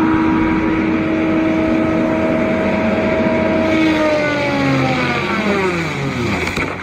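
An engine or motor running at a steady high pitch, then winding down, its pitch falling steeply over the last few seconds.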